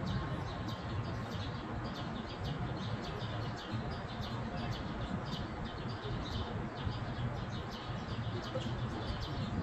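Small birds chirping over and over, short high calls throughout, over a steady low rumble.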